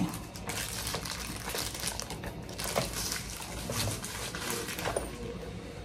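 Handbags being handled: rustling, crinkling and scattered light taps and clicks as a shoulder bag is taken off and another bag held and moved about.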